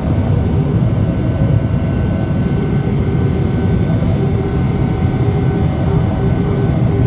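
Boeing 777-300ER cabin noise during the climb after takeoff: its GE90-115B turbofans running steadily as a loud, even low rumble with a faint steady whine on top, heard inside the cabin near the engine.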